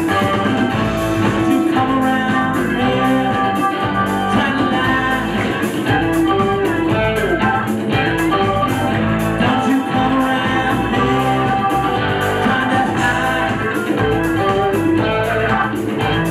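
Live band music, with electric guitar to the fore and a voice singing at times.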